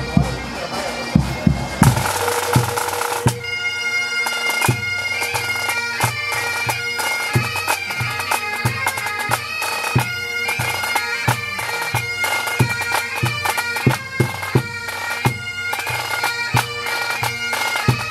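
Pipe band playing. Drum strokes open, then about three seconds in the Highland bagpipes come in, a steady drone under the melody, with the drums keeping time.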